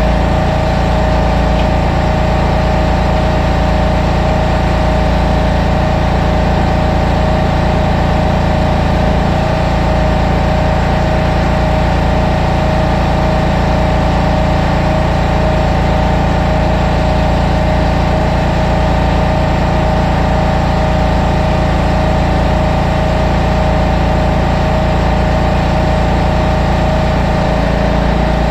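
Portable bandsaw mill's engine running steadily under load as the band blade cuts along a white oak log, with a steady high hum over the engine's low drone.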